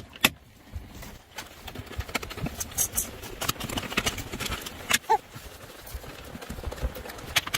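Irregular clicks and knocks of a hand tool and metal fasteners against dashboard trim as 10 mm bolts are undone, with a brief short squeak about five seconds in.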